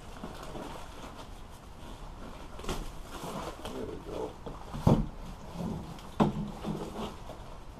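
Several sharp knocks amid irregular handling noise, the loudest knock about five seconds in.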